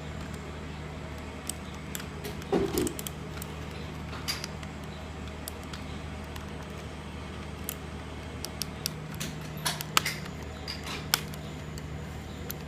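Scattered small clicks and taps from hands handling mechanical keyboard parts while a switch is being replaced, with a brief cluster of louder knocks about two and a half seconds in. A steady low hum runs underneath.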